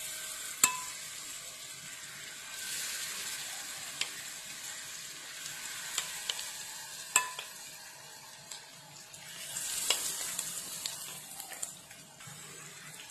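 Batter-coated cauliflower florets sizzling in hot shallow oil in a nonstick frying pan as they are spooned in. The hiss swells twice, and a spoon clicks sharply against the pan and bowl several times.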